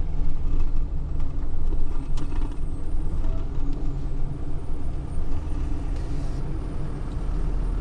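Tow truck engine running with a steady low rumble while the truck moves slowly, with a couple of light clicks about two seconds in.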